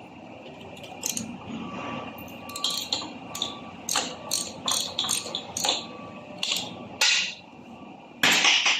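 Irregular sharp metal clicks and knocks from hand tools working on a manual gearbox being taken apart, about a dozen strikes, with the loudest, longer clatter near the end.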